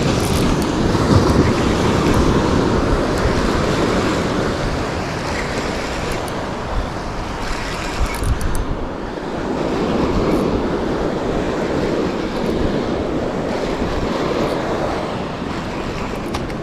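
Surf breaking and washing up the beach, with wind rumbling on the microphone; the noise swells and eases with the waves.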